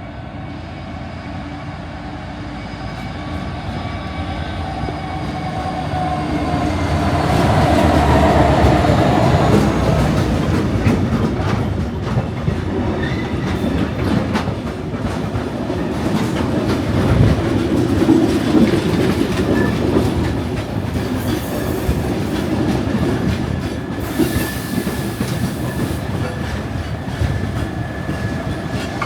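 A pair of Class 66 diesel locomotives (EMD two-stroke V12 engines) hauling an engineer's freight train. The engine sound grows steadily louder over the first eight seconds or so as the train draws near, then gives way to the rattle and clickety-clack of the wagons running over the rail joints. A thin high squeal runs through the last several seconds.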